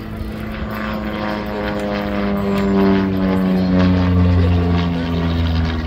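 Piston engine and propeller of an aerobatic biplane droning overhead. It grows louder toward the middle and the pitch drops slightly, as the plane passes.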